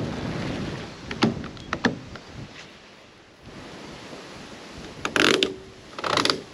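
Wind and waves washing over a rocky shore, then a few sharp clicks and two short loud rasps as a tie-down strap is pulled and cinched tight over a rod-holder tube on a ute's roof rack.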